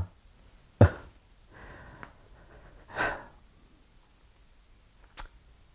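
A man breathing audibly in a pause between sentences: a faint breath, then a stronger breath about three seconds in. A sharp click about a second in is the loudest sound, and a shorter click comes near the end.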